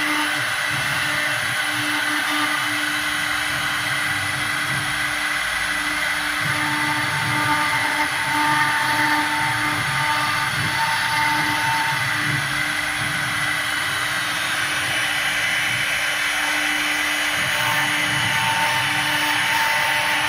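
Air-cooled CNC router spindle running at speed while the cutter carves into a wooden cylinder turning on the rotary axis: a steady whine with cutting noise, and a faint higher tone that comes and goes.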